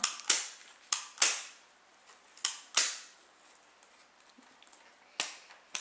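Sharp plastic clicks and snaps from a toy Poké Ball shell being pressed shut and handled, several in quick succession in the first three seconds and two more near the end.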